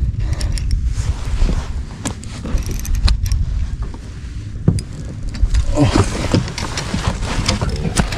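Wind rumbling on the microphone over a fishing kayak, with water and scattered sharp knocks and clicks from the hull and gear.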